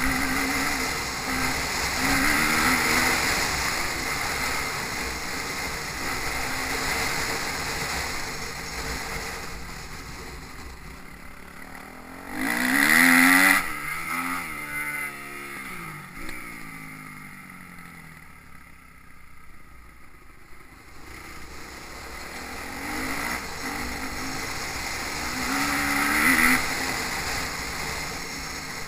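Motocross bike engines revving up and down as riders go round the track, with one bike passing close about 13 seconds in, its pitch dropping sharply as it goes by. Wind rumble on the microphone runs underneath.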